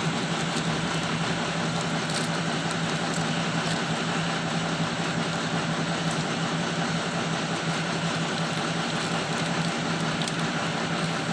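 Hitachi excavator's diesel engine idling steadily, a constant low hum.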